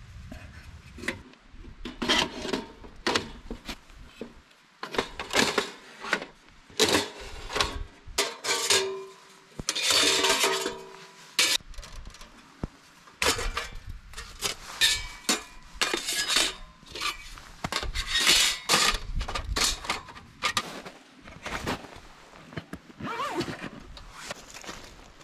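Metal camping gear being handled: a long, irregular run of clinks, knocks and scrapes, a few of them ringing briefly, loudest about ten seconds in.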